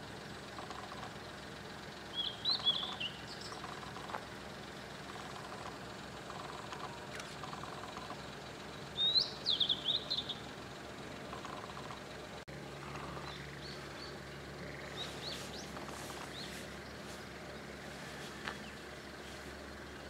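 Male blue-and-white flycatcher singing: two short phrases of quick, high, gliding notes, the first about two seconds in and the second about nine seconds in. Fainter, shorter high chirps follow later.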